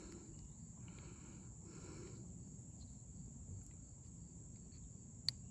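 Quiet background hiss with a steady high-pitched whine, and one small sharp click near the end as the lock lever is handled onto the new door lock cylinder.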